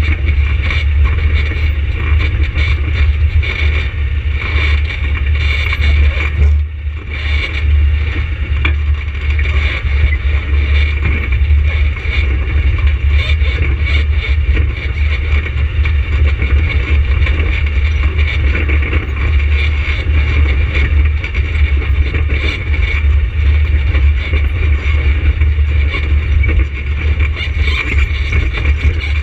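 An ATV engine running steadily under way, with a strong low rumble; it dips briefly about seven seconds in.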